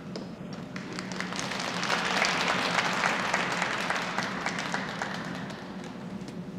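Audience applauding, the clapping swelling about two seconds in and then fading away.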